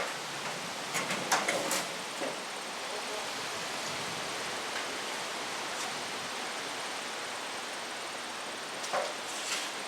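Steady hiss of falling rain, with a few short louder sounds about a second in and again near the end.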